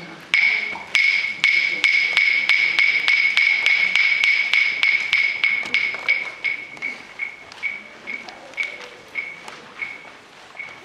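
Two wooden sticks clacked together. Each strike is a sharp, ringing clack. The strikes speed up to about four a second, then slow and grow fainter toward the end.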